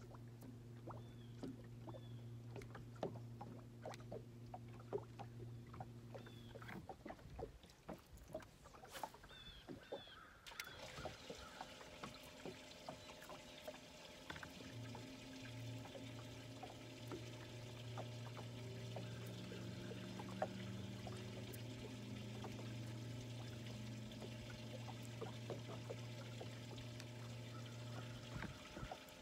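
A bow-mounted electric trolling motor hums steadily and low. It cuts off about seven seconds in and starts again about halfway through. Water laps and trickles against the boat hull throughout, with scattered small clicks.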